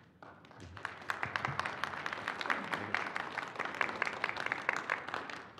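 Audience applauding. The clapping starts just after the beginning, builds within about a second and fades out near the end.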